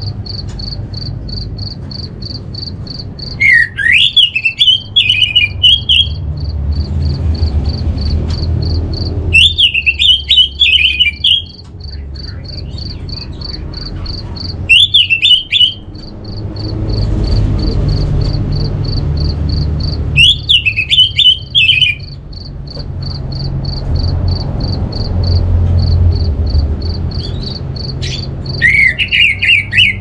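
Orange-headed thrush song: five short phrases of quick, varied whistled notes, each lasting one to two seconds and coming every five or six seconds. Beneath them runs a steady, rapid high pulsed chirping like a cricket, with a low rumble of background noise.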